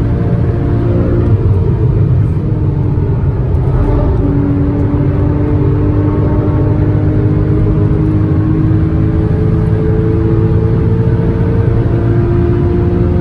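Porsche Cayman S 981's 3.4-litre flat-six running hard under load. The note changes in the first few seconds, then climbs slowly and steadily from about four seconds in as the car pulls through a long stretch in one gear.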